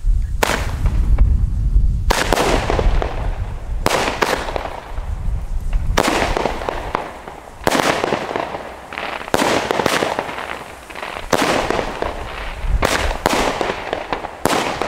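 Evolution Fireworks Sommerglück, a small consumer firework battery, firing about a dozen shots, one every one to two seconds. Each shot is a sharp bang that trails off, and several come in quick succession near the end.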